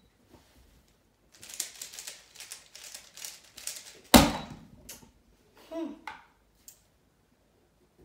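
Rapid clicking of a 2x2 speedcube's layers being turned fast for about three seconds, ending with a loud knock about four seconds in.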